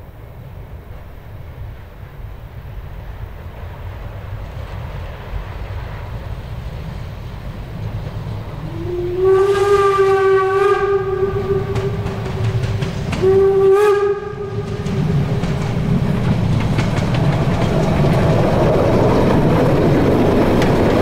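Harz narrow-gauge steam locomotive 99 234, a class 99.23–24 2-10-2 tank engine, approaching and passing with its train, its running noise growing steadily louder. Its whistle sounds twice: a blast of about four seconds starting near nine seconds in, then a second of about three seconds. The wheels clatter on the rails as the locomotive and coaches go by near the end.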